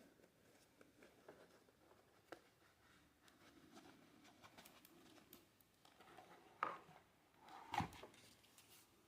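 Near silence with quiet handling: soft rustles and small taps, and two sharper clicks, one about two-thirds of the way in and one a second later.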